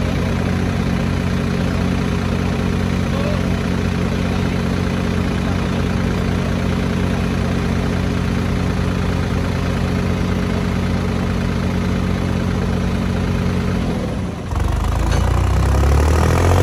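Ford and John Deere tractor engines running hard under load as the two tractors pull against each other, a steady, even engine note. About fourteen and a half seconds in the sound dips briefly, then comes back louder and lower.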